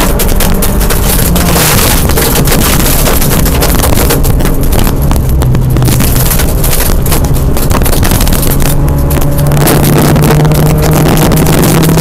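Rally car engine under hard acceleration, its pitch stepping with gear changes, heard from inside the cabin over loud gravel and tyre noise with stones clicking against the car.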